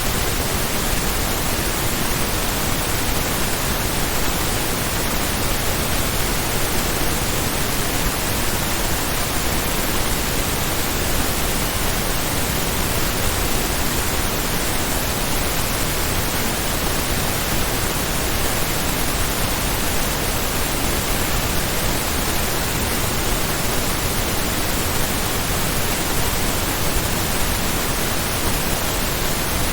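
Stereo pink noise test signal: a steady, even hiss spread across all pitches, with no change in level.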